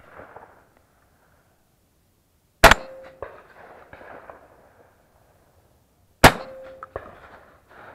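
Two shots from a Browning Fusion Gold semi-automatic shotgun, about three and a half seconds apart, each followed by a short ringing tone as it dies away.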